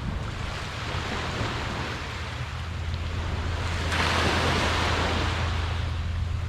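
Small surf washing onto the beach, with wind rumbling on the microphone; a wave breaks and washes up louder about four seconds in.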